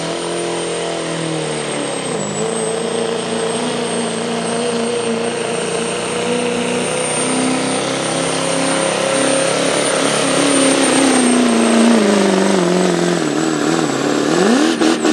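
Chevrolet diesel pickup pulling a sled at full throttle, engine running hard under a steady high turbo whistle. The engine's pitch drops sharply about two seconds in, then sinks slowly as the sled loads it down, and rises briefly near the end.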